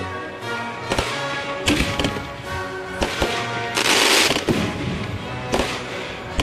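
Consumer fireworks going off over background music: sharp bangs roughly once a second, with a loud hissing crackle lasting about half a second around four seconds in.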